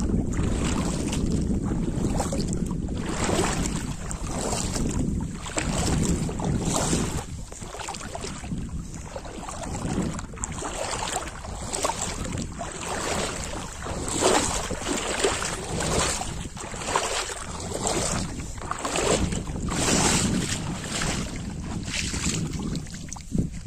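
Wind buffeting the microphone in gusts: a rough, uneven rushing that swells and drops every second or two.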